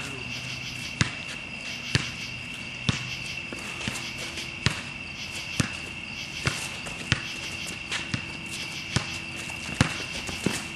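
Basketball being dribbled, a slow bounce about once a second, over a steady high-pitched drone.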